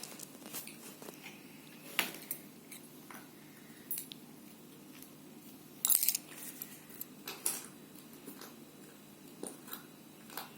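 Scattered light clicks and taps of small containers and utensils being handled, with a louder cluster of clatter about six seconds in.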